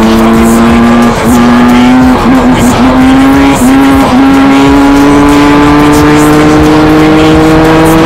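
Honda two-stroke motocross bike engine at high revs, held nearly steady. It drops briefly about a second in and twice around the middle as the throttle is cut or a gear is shifted, wavers for a moment, then pulls with a slowly rising pitch.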